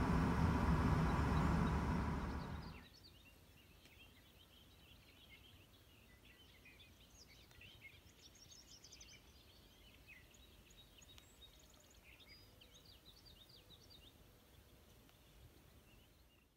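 A loud, steady rushing noise with a low rumble for the first three seconds or so, which cuts off abruptly. Then faint songbirds chirping, many short high calls over a quiet background.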